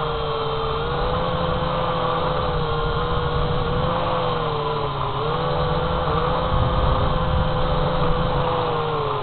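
Syma X8HG quadcopter's motors and propellers whining steadily, heard through its own onboard camera, over a low rumble. The pitch wavers with the throttle, dipping briefly about five seconds in and falling near the end.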